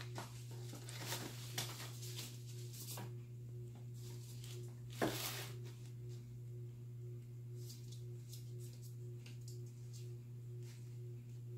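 A ferret rummaging among plush toys and papers: scattered soft rustles and light knocks, with one louder rustle about five seconds in, over a steady low electrical hum.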